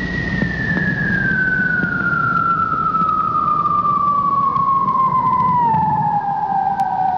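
A falling-bomb whistle sound effect: one long whistle gliding steadily down in pitch over a low rumble, with a small step down near the end.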